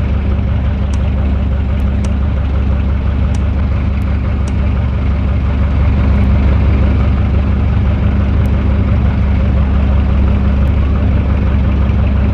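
Electric fan running with a steady low hum and the rush of moving air, growing a little louder about six seconds in.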